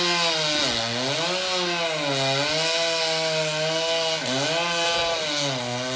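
Chainsaw running hard while cutting down a palm tree, its engine note dropping in pitch about four times as it bogs under load and then picking back up.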